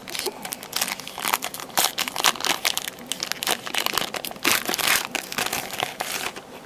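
Foil wrapper of a trading-card hobby pack being torn open and crinkled by hand, a dense run of irregular crackles.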